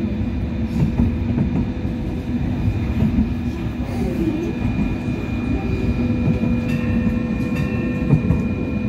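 Hong Kong Light Rail Phase I car running along the track: a steady rumble of wheels on rail, with a few steady whining tones from the running gear.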